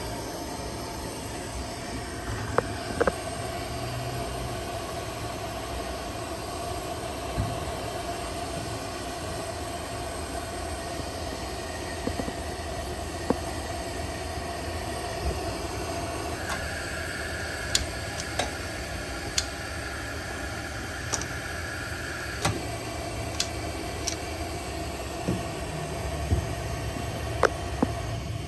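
Vintage 1940s Preway P4521 camp stove burner burning with a steady rushing hiss, broken by occasional sharp metallic ticks. A higher hiss joins for about six seconds midway.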